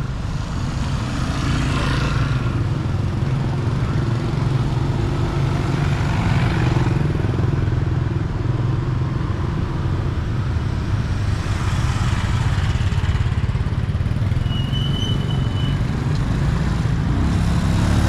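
Street traffic: motorbikes and a car passing one after another over a steady low rumble, with a motorbike engine close by near the end.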